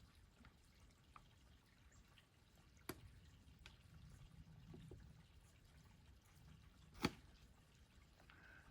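Near silence with a few faint, sharp taps, one clearly louder about seven seconds in.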